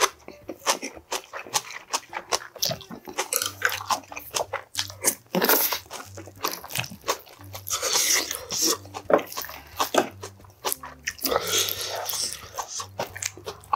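Close-miked chewing and crunching of food in irregular, rapid bites. Near the end a spoon scrapes and knocks in a small stainless steel pot while rice is scooped out.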